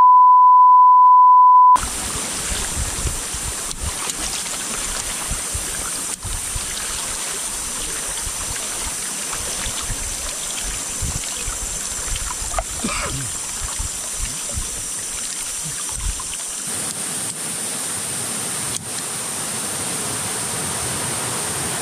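A loud, steady high beep of a censor bleep lasting nearly two seconds, then the steady rush of a fast-flowing river current around a wooden longboat, with irregular low rumbles on the action camera's microphone until about three-quarters of the way through.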